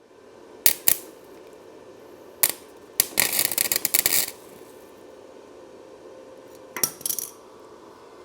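Short bursts of arc welding crackle, about a second long some three seconds in and briefly again near the end, as a bolt is tack-welded onto a steel frame, over a steady hum with a few sharp metallic clicks before them.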